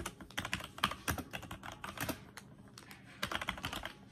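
Typing on a computer keyboard: several quick bursts of keystroke clicks with short pauses between them.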